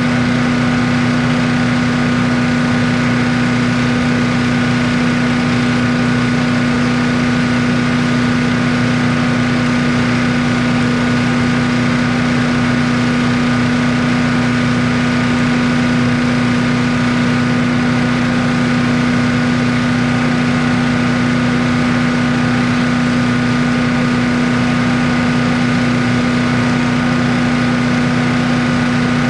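An engine running steadily at one constant speed, with a strong, unchanging hum.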